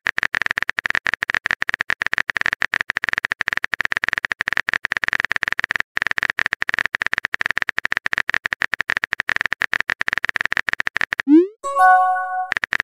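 Rapid typing clicks, a texting-app sound effect, for about eleven seconds. Near the end they stop, and a short rising pop with a brief ringing tone follows: the sound of a message being sent.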